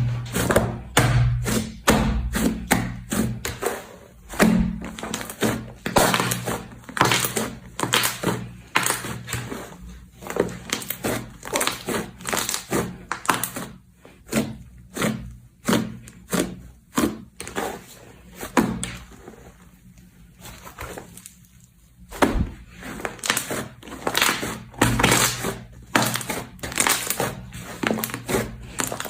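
Foam slime being squeezed and poked by hand: irregular crisp clicks and pops, several a second, with a brief lull about twenty seconds in.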